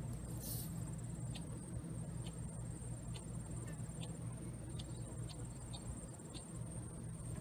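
Quiet rural background: a steady low hum and a high, pulsing chirr of insects, with a scattering of faint short clicks.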